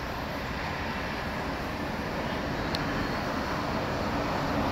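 Airbus A330-243 with Rolls-Royce Trent 700 turbofans climbing away, heard as a steady jet noise that grows a little louder toward the end.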